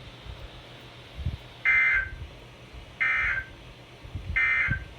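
Weather radio sending three short bursts of SAME digital data tones, a harsh warbling screech about a second and a half apart, the coded signal that frames a Required Weekly Test.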